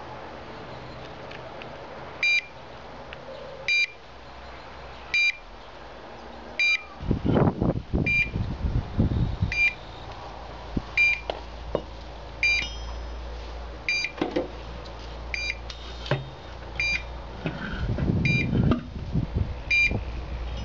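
Short, high electronic beeps repeating evenly about once every second and a half from the pipeline-pig tracking equipment, just after the low-frequency transmitter is switched on. From about a third of the way in, rustling and knocks of the transmitter being handled into the metal pressure-test vessel mix with the beeps.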